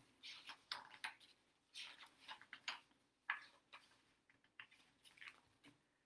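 Near silence with faint, brief rustles and soft clicks scattered through it: paper pages of a hardcover picture book being handled and turned.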